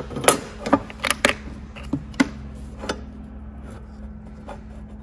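A bent steel rod and a square knocking and clattering on a wooden workbench as the bend is laid against the square to check it. There are about seven sharp knocks over the first three seconds, then it goes quieter, with a steady low hum underneath.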